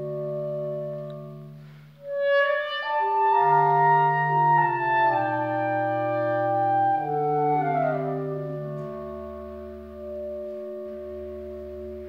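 Live octet of four clarinets and string quartet playing slow, sustained chords. The sound swells about two seconds in as a higher line enters, the chords shift with a short falling slide near the eight-second mark, and a deep bass note enters near the end.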